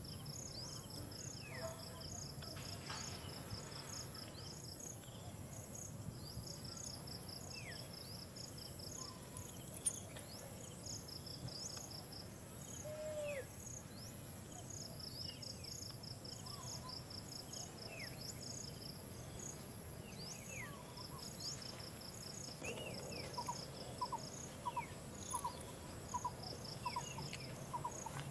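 Insects chirping outdoors: runs of rapid, high pulsed trills lasting a second or two, repeating every few seconds over a steady high hum, with scattered short chirps and a run of lower repeated notes near the end.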